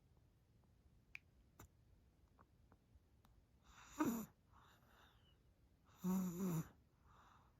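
A sleeping baby snoring: a short snore about four seconds in that falls in pitch, and a longer, louder one about six seconds in, with soft breaths between them. A few faint clicks come before the first snore.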